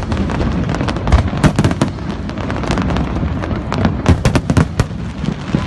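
Fireworks display: shells bursting in quick succession, many sharp bangs and crackles over a continuous low rumble.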